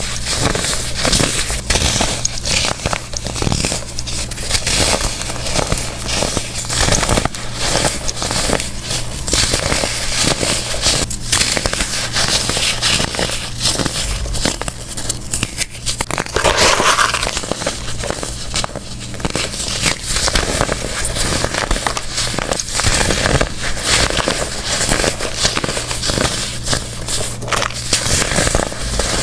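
Pressed baking soda blocks being crushed: dense, continuous crunching and crumbling made of many sharp crackles, with no pauses.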